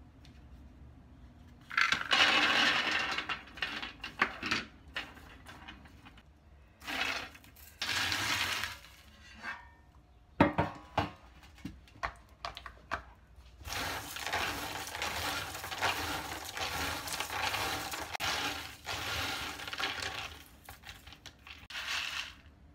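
Roasted peanuts rattling against a metal baking tray and in a plastic colander, in several long bursts of clattering with a few sharp clicks in between. The peanuts are being rubbed and shaken to loosen and shed their papery red skins.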